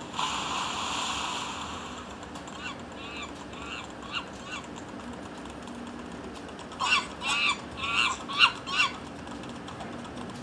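Mobile game sound effects from a smartphone speaker: a rush of splashing noise for the first two seconds as the runner falls into water, then the chasing demon monkeys' screeching calls, a few faint ones a few seconds in and a run of six loud ones a few seconds later.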